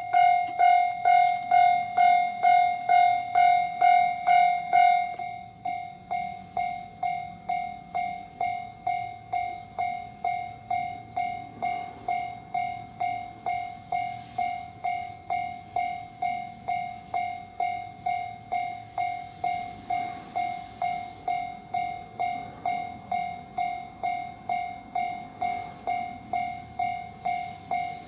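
Japanese level-crossing warning bell ringing steadily at about two strikes a second, signalling an approaching train. It is louder for the first five seconds, then a little quieter.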